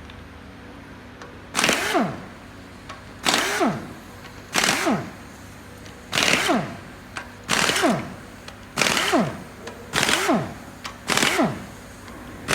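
A small motorised tool run in eight short bursts, about one every second and a half; after each burst the pitch falls as the motor winds down.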